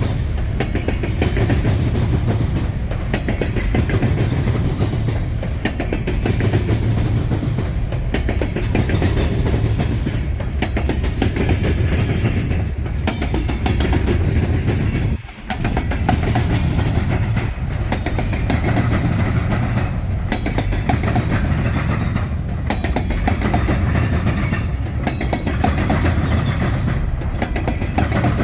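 CSX freight train's cars rolling past, a steady heavy rumble with the wheels clacking over the rail joints, broken once by a momentary gap about halfway through.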